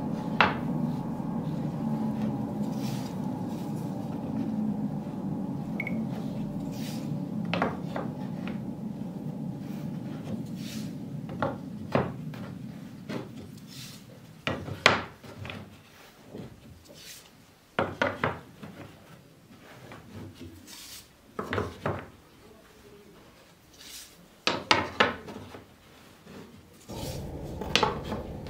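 Glued-up end-grain wooden strips knocking and clacking against each other and sliding on a wooden workbench as they are shifted into a pattern: scattered sharp knocks, several in quick pairs. A low steady hum under the first half fades out about halfway.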